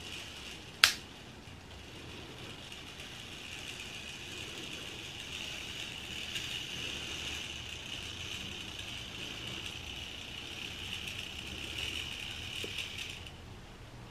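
A sharp snap about a second in as the old Tomix electric turnout throws, then the steady high whir of the 1970s Tomix N gauge locomotive's motor as the train runs slowly through the points, cutting off shortly before the end as it stops.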